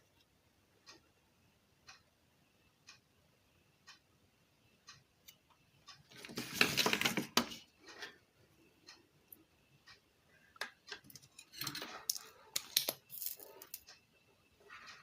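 Faint ticking of a clock about once a second. Near the middle comes a brief hiss lasting about a second and a half, and later a cluster of small clicks and metallic rattles from tools and parts being handled while a switch is desoldered from the circuit board.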